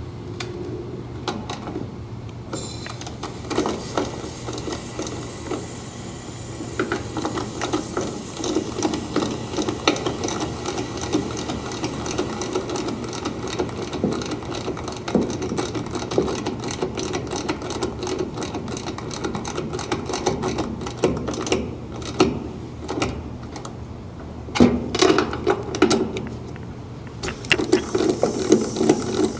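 Ratcheting service valve wrench clicking rapidly as the AC condenser's service valve stems are backed out, opening the valves to release the refrigerant charge into the repaired line set, over a steady low hum. The clicking comes in long runs with brief pauses.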